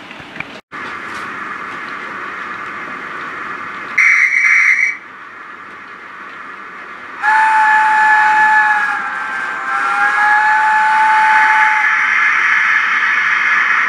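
Steam locomotive sounds, as from a sound-fitted model: steam hissing throughout, a short high whistle about four seconds in, then a long chime whistle of several notes together, held for about five seconds from about seven seconds in.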